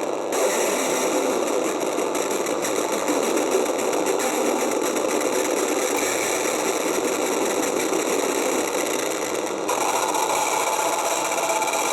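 Homemade piezo noise box played through distortion effects: a dense, rattling, distorted noise drone. About ten seconds in the sound shifts brighter and a steady tone joins it.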